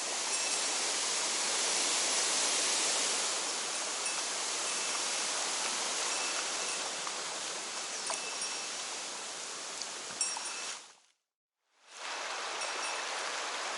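Mountain stream water rushing steadily. The sound cuts out for under a second about eleven seconds in, then returns.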